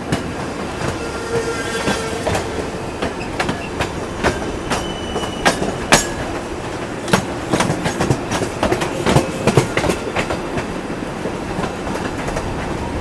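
Steel wheels of a passenger train clattering over rail joints as it runs past close alongside on the next track, a steady rumble full of irregular clicks and knocks, with a brief faint wheel squeal about a second in.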